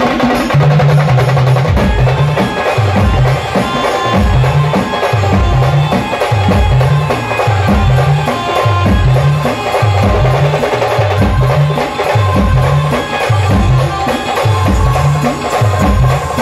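Live village band playing a Marathi folk tune: a heavy drum beat, about two strokes a second, under a melody line.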